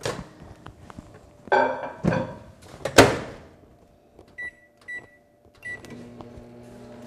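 Microwave oven being loaded and started: clunks of the door and mug, a sharp bang about three seconds in as the door shuts, three short keypad beeps, then the oven starts running with a steady low hum.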